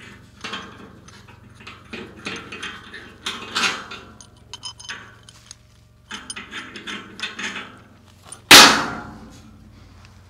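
Steel parts clinking and rattling as they are handled at a rusty steel loader bucket, then one loud metal clang about eight and a half seconds in that rings and dies away.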